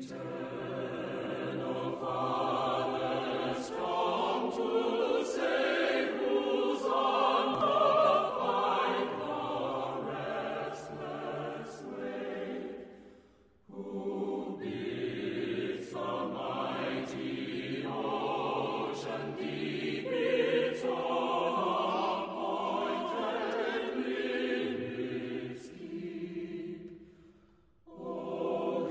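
Choir singing slow, sustained phrases as background music, breaking off briefly twice, about halfway through and near the end.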